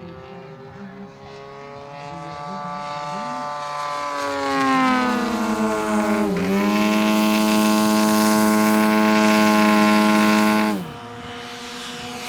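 Electric-powered radio-controlled scale P-51 Mustang model flying past. Its motor and propeller tone grows louder and slides down in pitch as it passes. The tone holds a steady high-power pitch from about six seconds in, then drops sharply as the throttle comes back near the end.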